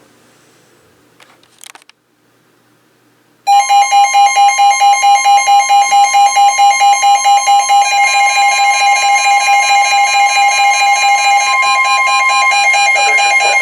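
Emergency Alert System attention signal: a loud two-tone alarm that starts suddenly about three and a half seconds in, after faint hiss and a brief faint blip. It pulses rapidly at first, then holds steadier, and sounds harsh and distorted.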